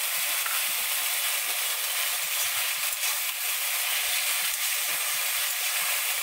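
Cubed potatoes frying in hot mustard oil in a wok: a steady sizzling hiss.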